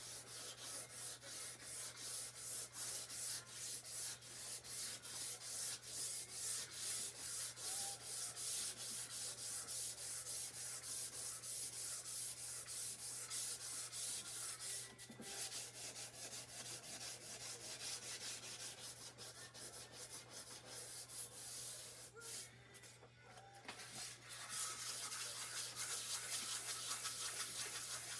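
400-grit wet/dry sandpaper rubbed back and forth by hand over a wet, rusty steel chainsaw guide bar, in steady strokes of about two a second, with a brief pause a few seconds before the end.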